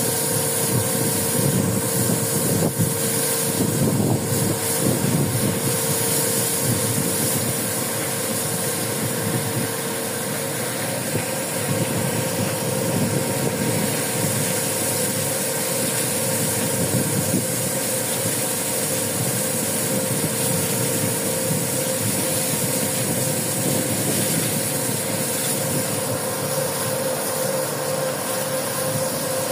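Steady drone of a fishing vessel's engine and machinery, with a constant mid-pitched hum over a low rumble.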